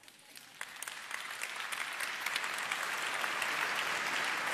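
Hall audience applauding: the clapping starts faint and scattered and builds over about two seconds to steady, full applause.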